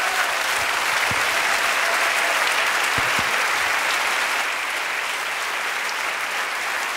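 Studio audience applauding steadily, easing off slightly after about four and a half seconds.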